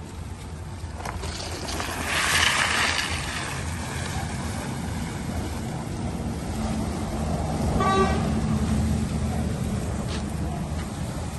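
Outdoor traffic noise with a steady low rumble and a loud rushing hiss about two seconds in; a car horn gives a short toot about eight seconds in.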